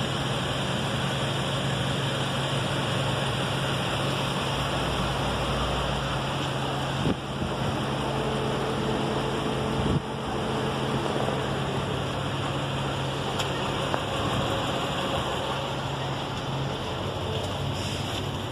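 A steady low machine hum over a broad even hiss, with a couple of short knocks about seven and ten seconds in.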